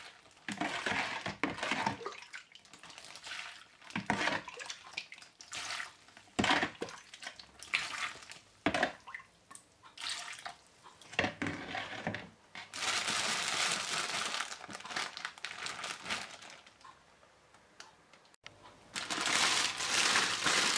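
Thick plastic freezer bag rustling and crinkling in irregular bursts, with one longer run past the middle, as it is handled and its mouth twisted shut, while the salt-and-vinegar brine inside sloshes around the vegetables.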